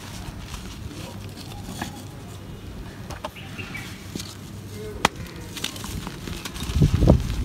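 Dry, hardened floor-mud clumps being squeezed and crumbled in bare hands, crunching, with loose grit trickling. There is a sharp crack about five seconds in, and heavier crunches near the end as a larger lump is broken.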